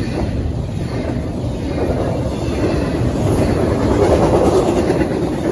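CSX double-stack intermodal freight train's well cars rolling past on the rails: a steady rumble of wheels on track that grows louder about three and a half seconds in.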